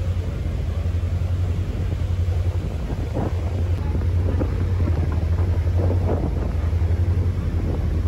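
A ferry's engine running with a steady low drone, with water rushing through the churned wake alongside the hull and wind buffeting the microphone.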